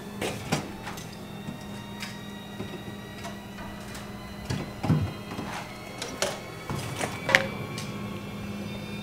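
Someone rummaging in an open refrigerator: scattered light clicks and knocks of items being shifted, over a steady low hum. A sharper, louder knock comes about seven seconds in.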